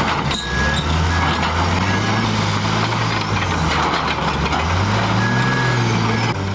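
Large crawler bulldozer's diesel engine working under heavy load as the blade pushes into boulders, with grinding track and rock noise. The engine note dips and climbs again twice as the load changes.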